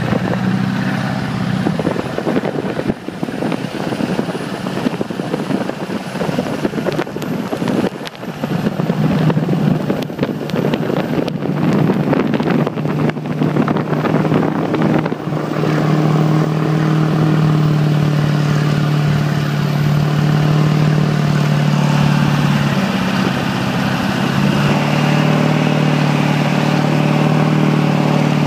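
LB7 Duramax 6.6-litre V8 turbo-diesel running under load as the truck plows snow, with the rush and crackle of snow spilling off the plow blade. For the first half the rough rushing noise is on top; from about halfway the engine settles into a steady hum.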